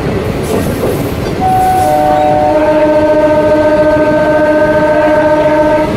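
Train horn sounding one long, steady multi-tone blast that starts about a second and a half in and lasts about four seconds, then cuts off. Under it runs the rumble and clatter of a moving electric local train, heard from on board.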